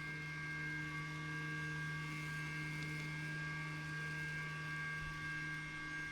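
Lymow One robot lawn mower's electric motors running steadily: a low, even hum with a thin high whine above it.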